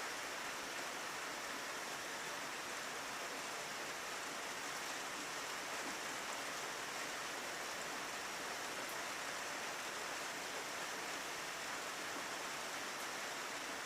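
Steady heavy rain falling, an even hiss of water with no breaks or thunder.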